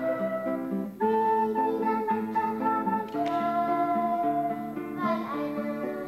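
Music: guitar accompaniment under a held melody line, in phrases of about two seconds.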